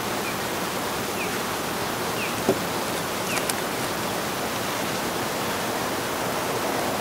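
Steady rushing noise of open-air wind and water ambience, with a single faint click about two and a half seconds in.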